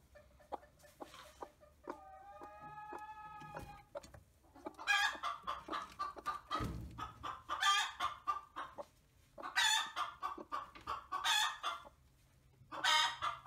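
Chickens clucking: one long drawn-out call about two seconds in, then four bursts of rapid clucking, typical of a broody hen.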